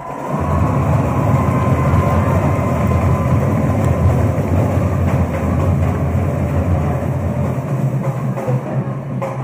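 Loud music with drums, heavy in the low end, typical of a school band playing at a pep rally. It comes in about half a second in and keeps going steadily.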